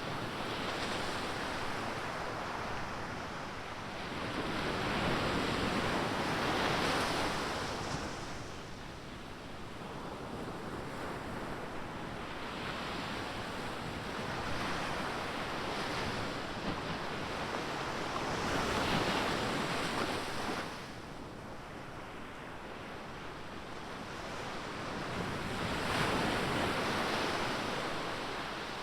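Ocean surf on a beach: waves breaking and washing in, swelling and ebbing every several seconds, with some wind noise on the microphone.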